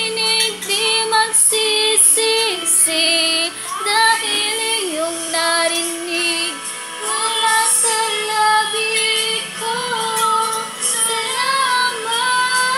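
Children and women singing a pop ballad together over backing music, playing from a television.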